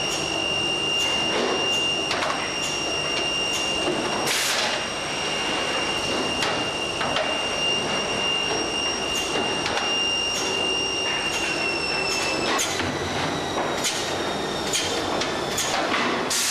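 Woodworking machine line running: a steady high whine at several pitches, under frequent clicks and knocks of wood and machine parts, with two short rushing noises. The whine changes pitch about two-thirds of the way through.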